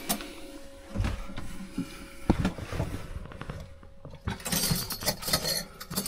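Handling noise in a small wet bath: a few light knocks and clicks, then a rustle of shower-curtain fabric about four seconds in, as the curtain is pulled around. A faint steady hum runs underneath.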